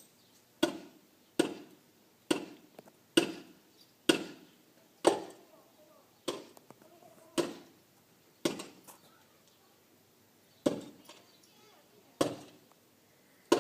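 A series of about a dozen heavy blows, roughly one a second with a short pause near the middle, each ringing briefly after the strike.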